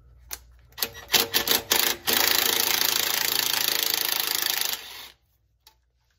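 Cordless Ryobi impact driver backing out a 10 mm transmission pan bolt: a few short clicks and knocks, then about three seconds of continuous rapid hammering that stops abruptly.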